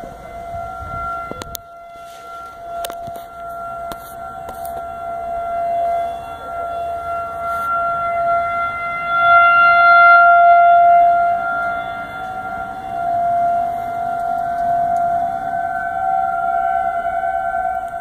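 Tornado warning siren sounding a steady held tone for a drill. It swells and fades in loudness and is loudest about halfway through.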